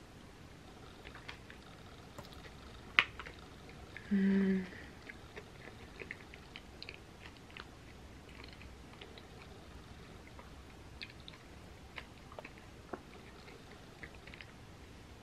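A person chewing a mouthful of cherry pie close to the microphone: soft wet mouth clicks and smacks scattered throughout, with a sharper click about three seconds in and a short hummed 'mm' about a second later.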